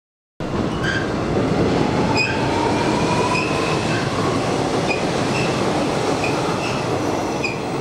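Electric commuter train running on the Hanshin line, a loud steady rumble of wheels on rails with brief, scattered high wheel squeals and a faint rising whine.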